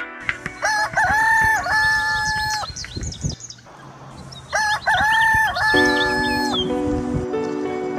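A rooster crowing twice, each crow about two seconds long, with small birds chirping high above. A sustained music chord comes in about six seconds in.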